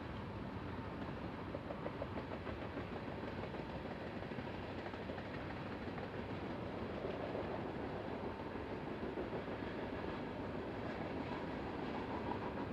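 BNSF freight train rolling past, a steady rumble of wheels on rail.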